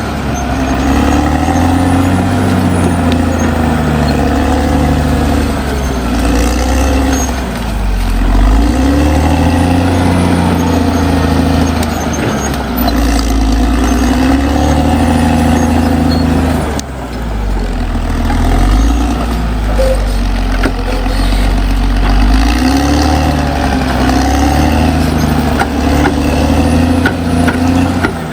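Caterpillar D6R XL bulldozer's diesel engine working, its pitch rising and falling again and again as it revs up and eases off.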